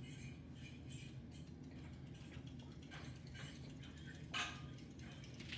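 Faint rustles and taps of paper sticky notes being handled and waved, a few soft ones and a louder one about four and a half seconds in, over a low steady room hum.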